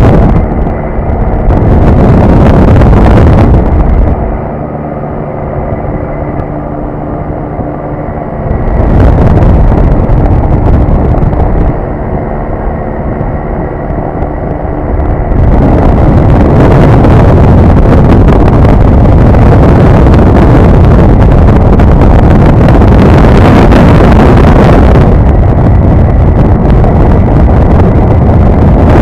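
In-flight noise of a QuikGT450 flexwing microlight: heavy wind rush on the microphone over the steady drone of its engine. The rush drops back twice for a few seconds, letting the engine's even hum come through.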